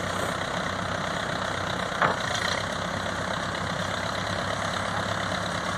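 Vehicle engine idling steadily, with a single sharp knock about two seconds in.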